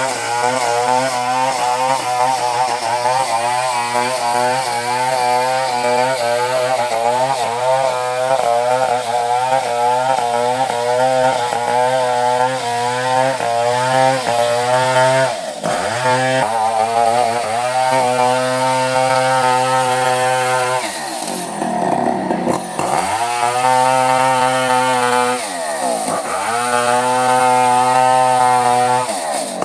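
Two-stroke chainsaw running at high revs while cutting coconut wood, its pitch wavering under load. Several times the revs drop sharply and climb back, with a longer dip about two-thirds of the way through.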